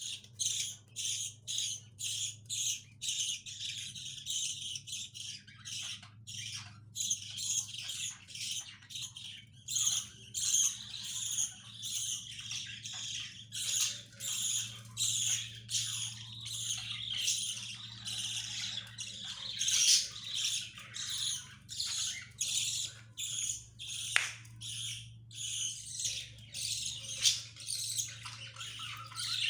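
Young pet parrots calling in a constant string of harsh, high squawks and chirps, about two a second, with a low steady hum underneath.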